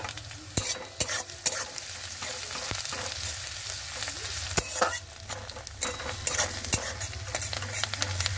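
Chopped onion, garlic, ginger and green chilli sizzling in hot mustard oil in an aluminium kadai, with a steady hiss throughout. A metal spatula stirs the mix, scraping and knocking against the pan at irregular moments.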